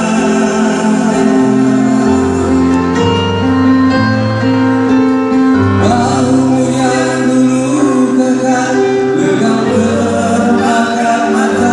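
Live band music with male voices singing, amplified through a PA system, with a keyboard and a bass line under held vocal notes.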